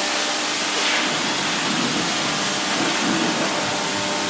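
Steady, loud rushing hiss of spraying water or blowing air, holding level throughout, with a faint steady hum underneath.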